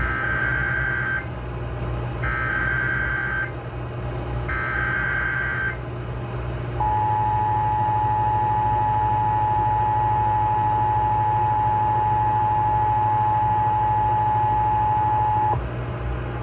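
Emergency Alert System tones on AM radio. First come three short bursts of the SAME digital header, each a little over a second long with pauses between them. Then the steady two-tone EAS attention signal holds for about nine seconds and cuts off a second before the end, all over a steady low hum.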